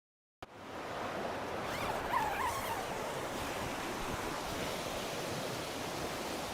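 Steady rushing rainforest ambience, like heavy rain or running water, starting abruptly about half a second in. A brief wavering chirp call is heard around two seconds in.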